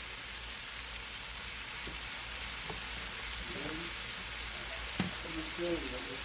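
Green beans and onions sizzling in oil in a stainless steel pan kept on high heat for a dry stir-fry: a steady hiss, with a single click about five seconds in.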